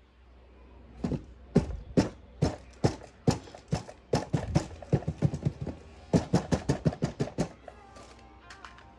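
A run of sharp, irregular clicks and taps, several to a second, stopping shortly before the end, when faint music comes in.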